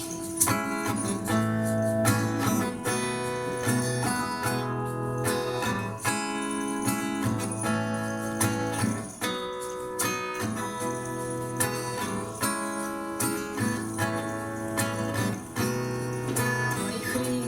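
Acoustic guitar strumming chords in an instrumental break between sung verses.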